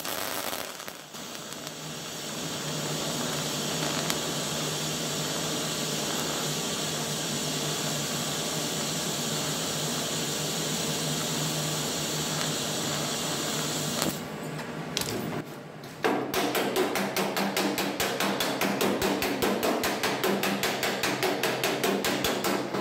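Low-current TIG welding arc (set to about 20 A) hissing steadily with a faint hum for about fourteen seconds, then, after a brief pause, rapid hammer blows on the freshly welded sheet steel against a dolly. This is heat-and-hammer planishing of the hot weld.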